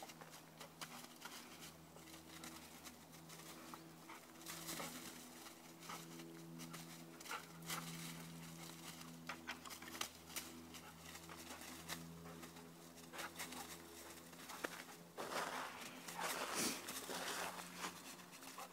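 A retriever searching by scent, sniffing and pawing through dry fallen leaves in faint, irregular rustles, louder near the end. A faint steady low hum runs underneath.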